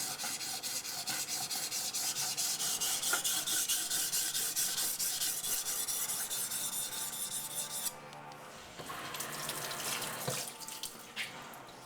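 Steel blade of a Becker BK9 knife stroked quickly back and forth on a 180-grit waterstone: an even, rhythmic scraping at several strokes a second. It stops suddenly about eight seconds in, and quieter handling follows with a couple of sharp knocks.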